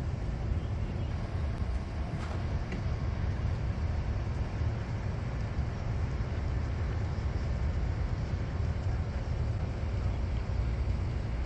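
Steady low rumble of outdoor city ambience, heaviest in the bass, with no distinct events apart from a faint click about two seconds in.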